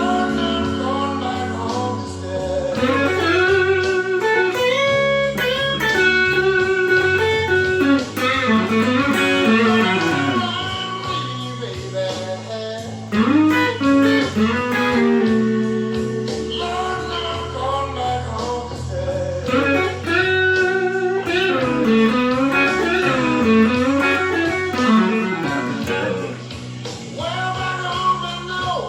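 Electric guitar, a Stratocaster overdriven by a TS9 Tube Screamer into a Fender Blues Junior tube amp, playing a slow blues lead full of string bends and held notes over a blues backing track with bass.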